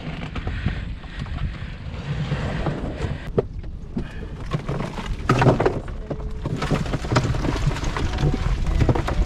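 Wind rumbling on the microphone in an open boat, with scattered knocks and a louder clatter about five and a half seconds in as the shrimp trawl net is slid along the side of the jon boat.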